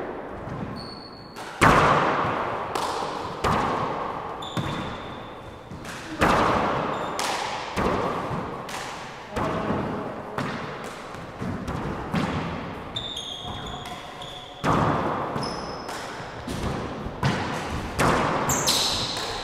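Four-wall handball rally: the rubber ball is struck by gloved hands and smacks off the walls and floor, roughly once a second, each hit ringing out in the enclosed court. Brief sneaker squeaks come in between the hits.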